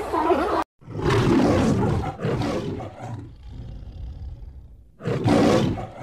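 Lion roaring: a long, deep roar begins about a second in and fades over a few seconds, and a second, shorter roar comes near the end.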